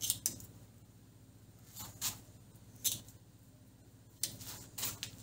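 Monofilament nylon gill-net meshes being cut with a knife: about six short, sharp snips at uneven intervals as strands are pulled taut and severed one by one, over a faint low hum.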